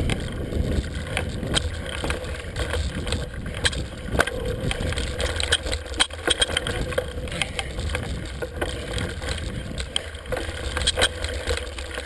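Mountain bike riding over bare rock slab, rattling with frequent sharp clicks and knocks over a steady low rumble.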